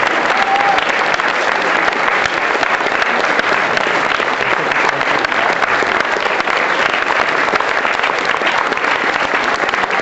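Audience applauding, a dense and steady clapping that holds without a break.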